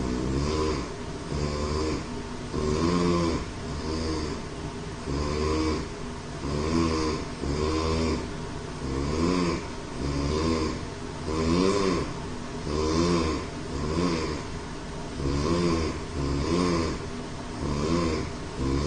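A man snoring loudly and fast: a pitched, rattling snore on almost every breath, about one a second.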